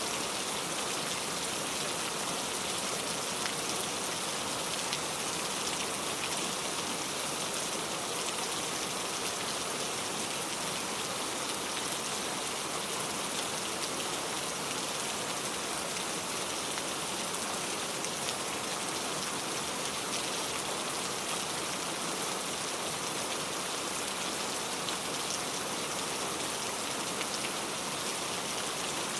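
Steady rain falling and pattering on surfaces, an even hiss of many drops with fine individual drop ticks and no change in strength.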